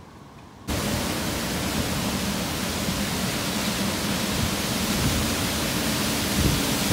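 Heavy rainstorm: a dense, steady roar of downpour and wind that starts abruptly under a second in after a quiet stretch.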